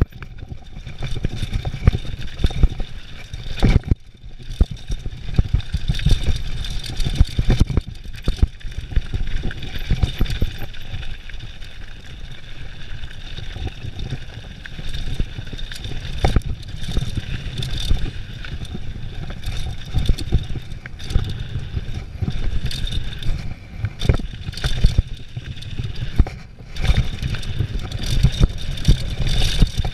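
Mountain bike descending a dirt and gravel trail at speed: wind rumbling across the action camera's microphone, tyres rolling over the ground, and the bike rattling and clattering over bumps throughout.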